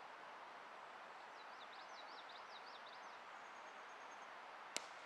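Faint outdoor ambience with a bird chirping a quick run of notes about a second and a half in. Near the end comes a single sharp crack of a cricket bat striking the ball.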